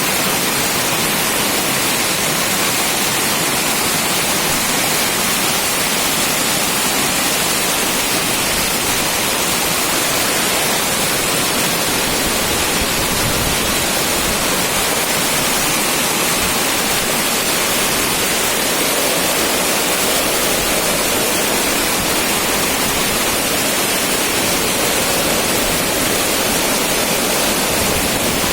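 Water rushing in a steady, loud, even flow.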